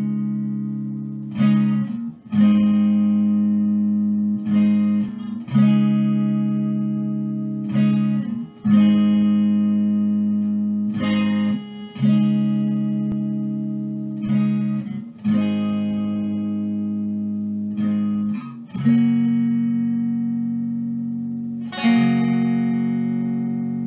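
Guitar music: slow chords struck every one to three seconds, each left to ring out and fade before the next.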